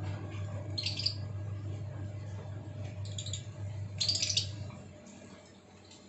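Lovebirds giving short high-pitched chirps, three times: about a second in, at about three seconds and at about four seconds. Underneath runs a steady low hum that fades out a little before five seconds in.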